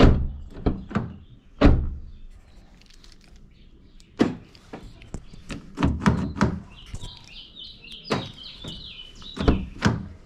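A series of sharp clunks and thuds from a Smart forfour (453) door as its outside handle is pulled, the latch released and the door opened and shut, testing a newly replaced door lock. A bird chirps in the background in the second half.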